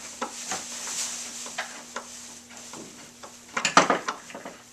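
Plastic wrapping on an office chair crinkling and rustling as the chair is handled, with scattered small knocks. A louder burst of rustling and knocks comes near the end.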